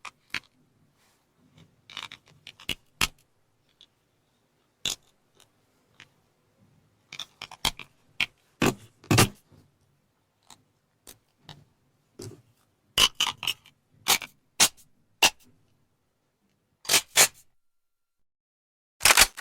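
Gun handling sounds: a series of sharp metallic clicks and short sliding scrapes from a firearm's action being loaded, racked and unloaded. They come in separate clusters a second or two apart, with the busiest stretches about a third of the way in and again past the middle.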